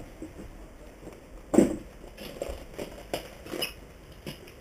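Footsteps on a floor strewn with debris: a few irregular scuffs and knocks, the heaviest about one and a half seconds in.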